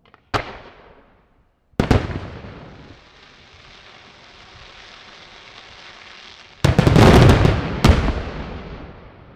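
Daytime aerial fireworks shells bursting: a sharp bang just after the start, a second loud bang just under two seconds in followed by a steady hiss, then a rapid cluster of bangs about seven seconds in and one more a second later, each trailing off in echo.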